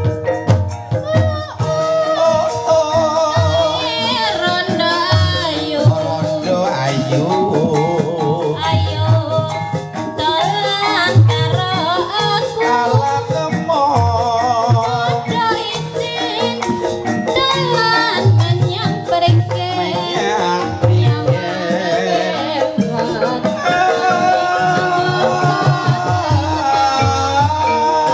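Javanese gamelan music accompanying an ebeg hobby-horse dance: struck mallet percussion and drums in a steady beat, with a singer's wavering vocal line over it.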